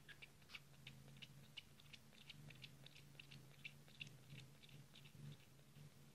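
Faint, rhythmic clicking of a few-days-old kitten suckling milk from a nursing bottle's teat, about three clicks a second, thinning out near the end, over a low steady hum.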